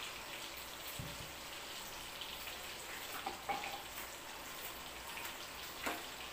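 Quiet room noise: a steady hiss with a few faint knocks.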